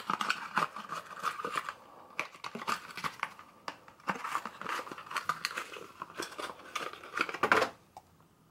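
Hands handling a small wooden gift box and the little lotion bottles inside it: rustling with quick taps and clicks, and a louder clack near the end.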